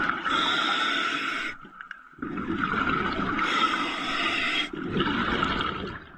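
A diver breathing through a regulator fed by a surface compressor hose: rushing breaths and bubbling, in long spells broken by short pauses, one pause about two seconds in and another at the end.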